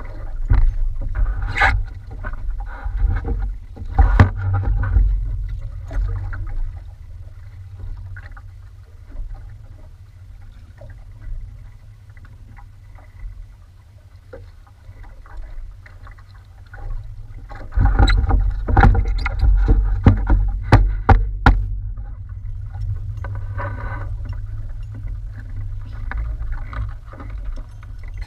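Small wooden outrigger boat rocking on open sea: water slapping and sloshing against the hull under a heavy, steady rumble, with scattered sharp knocks on the boat. The knocks bunch up in two busier stretches, in the first few seconds and again about two-thirds of the way through.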